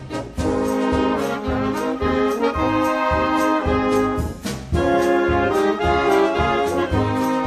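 Brass band music: held chords from trumpets and trombones over a regular low beat.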